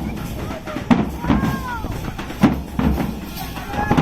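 Dhak, the Bengali barrel drum, beaten with sticks: heavy low strokes about every second and a half over a busy rhythmic patter, with voices in the background.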